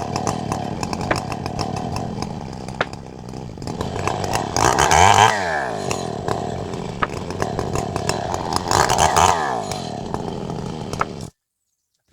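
Chainsaw running steadily, revved up twice with its pitch dropping back after each rev. It cuts off abruptly near the end.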